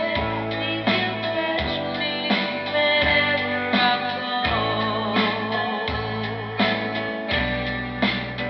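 Classical guitar being strummed in a steady rhythm, with a person singing along into a microphone.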